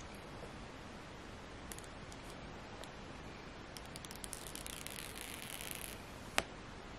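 Protective paper film being peeled off a new iPhone's screen: a faint hiss of the adhesive letting go, with small crackles, for about two seconds, then a single sharp click.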